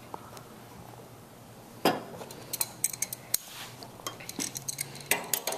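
Small metal clinks and taps of a wrench and brass and copper fittings being handled: a sharp clink about two seconds in, then a scattered run of lighter clicks.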